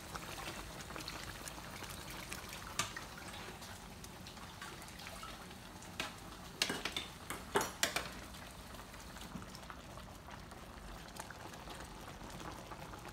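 Honey glaze bubbling around chicken pieces in an electric skillet, with a few sharp clicks of a utensil against the pan, most of them about six to eight seconds in.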